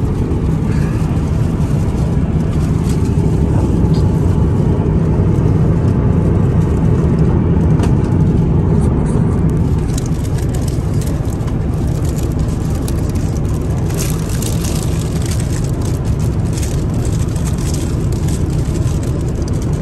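Steady low rumble of an airliner cabin in flight: engine and airflow noise.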